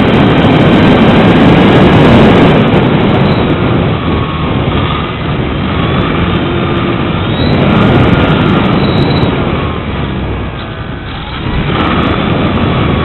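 Strong wind buffeting the microphone in loud, surging gusts, with the faint whine of the Visionaire RC plane's electric motor rising and falling beneath it.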